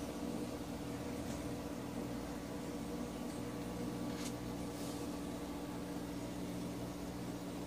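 A steady machine hum: several steady tones under a light hiss. Over it come a few faint brushes of a hand on sketchbook paper, the clearest about four seconds in.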